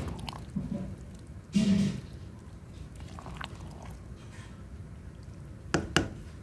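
Spoon stirring a thick, saucy stew in a pan, making wet squishing sounds. There is a louder scrape about one and a half seconds in and two sharp clicks near the end.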